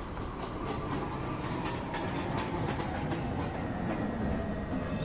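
NYC subway R62 train on the 1 line running into a station: steady rumble with wheels clicking over the rail joints and a whine that falls slowly in pitch as the train slows.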